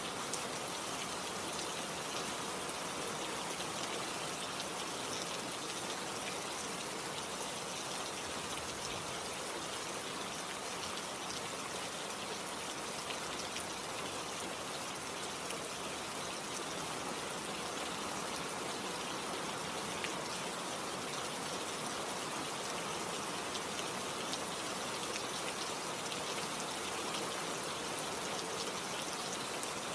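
Steady rain falling, with a continuous hiss and many small drop ticks.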